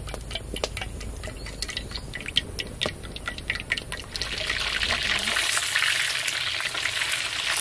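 Cooking oil pouring into a metal wok, with scattered sharp crackles. About four seconds in, whole fish frying in the hot oil takes over as a steady, louder sizzle.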